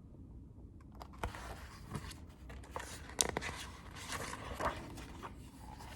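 Paper rustling and scraping with scattered sharp clicks, starting about a second in: the pages of a picture book being handled and turned.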